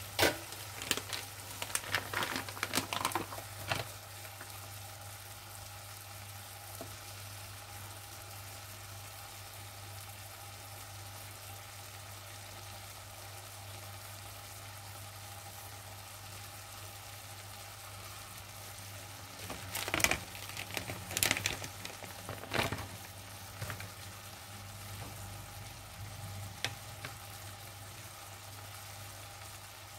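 Vegetables sizzling steadily in hot oil in a non-stick wok. Short bursts of knocks and scrapes come at the start and again about two-thirds of the way through.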